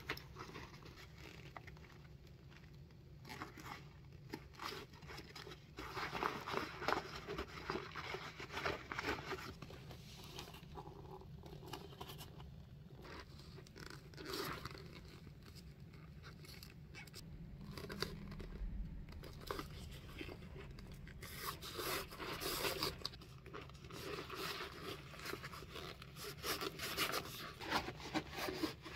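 Hands rustling and scraping the nylon lining and leather inside a Chanel leather handbag, in irregular bursts, over a steady low hum.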